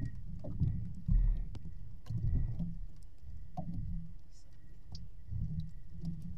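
Water sloshing and lapping against the hull of a small fishing boat, in irregular low surges. Scattered light clicks come from the longline and its hooks being handled at the wooden line box.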